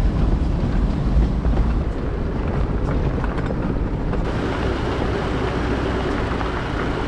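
Vehicle driving on a dirt track: a steady low rumble of engine and tyres, with wind noise. About four seconds in the sound shifts to a brighter hiss.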